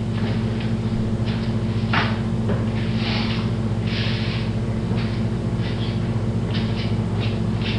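Steady low electrical hum with scattered short rustles and soft knocks of someone moving about.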